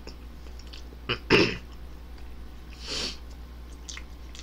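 Mouth and breath sounds of a man eating ramen: a short loud breathy burst about a second and a half in, and a softer hissing breath around three seconds in, over a steady low hum.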